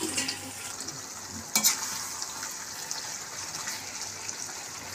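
Spiced chicken masala sizzling in a hot kadai while a perforated ladle stirs it. About one and a half seconds in, water poured into the pan sets off a sudden louder hiss, which settles into a steady sizzle as the curd gravy heats.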